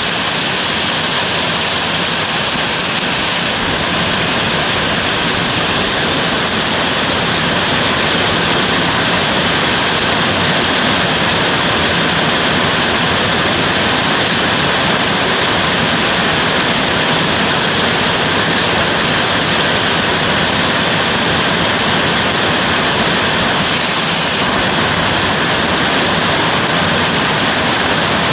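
Steady heavy rainfall, a loud, even hiss; the highest part of the hiss softens a few seconds in and comes back near the end.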